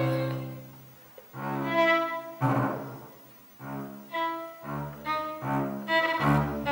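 Violin and double bass playing short, halting bowed notes in a stop-start exchange, one chasing the other; a held note fades out about a second in, followed by a brief gap.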